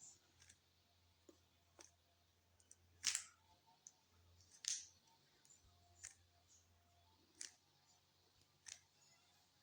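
Rubik's cube being turned through an OLL algorithm: faint, scattered plastic clicks of the layers turning, about one a second, with two louder ones about three and four and a half seconds in.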